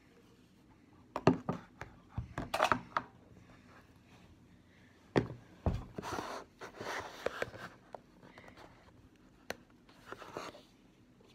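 A plastic food-storage container with a snap-on lid being handled: scattered sharp clicks and knocks, with short rustling scrapes in between.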